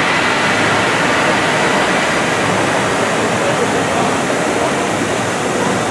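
Steady rush of splashing water, an even wash of noise that holds at one level without let-up.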